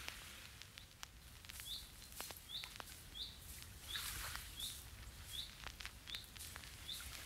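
A bird chirping faintly, one short call repeated about every three-quarters of a second, with a few faint clicks in between.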